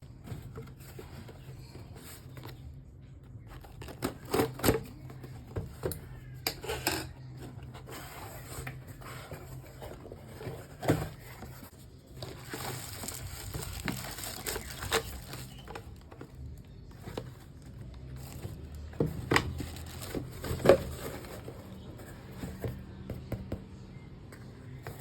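Casio F-91W watch packaging being handled and opened: plastic crinkling and tearing, with scattered sharp clicks and knocks and a longer rustle about halfway through, over a low steady hum.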